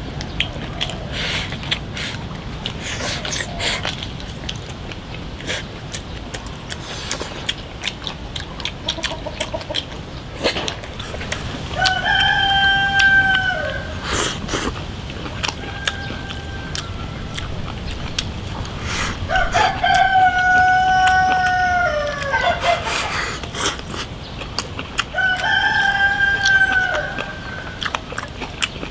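A rooster crows three times. Each crow is a long held call that drops off at the end, and the second is the longest.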